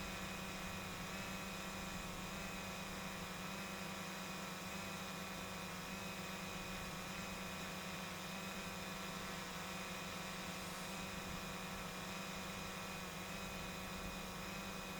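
Quadcopter drone's motors and propellers giving a steady buzzing hum, its pitch wavering slightly as the drone holds its flight.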